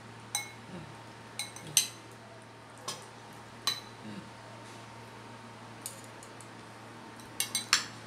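Metal cutlery clinking and scraping against ceramic plates and bowls: scattered sharp clinks with a short ring, including three in quick succession near the end.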